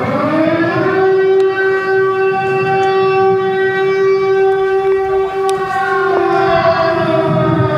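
Civil-defence air-raid siren wailing. Its pitch rises over the first second, holds steady, then falls away from about six seconds in.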